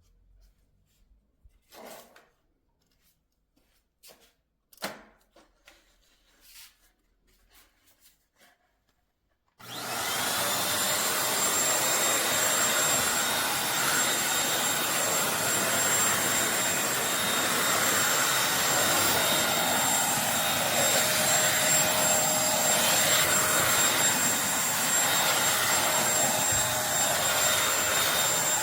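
A few faint clicks and handling knocks, then about ten seconds in the Eureka NES212C corded stick vacuum's motor switches on abruptly and runs steadily with a high whine.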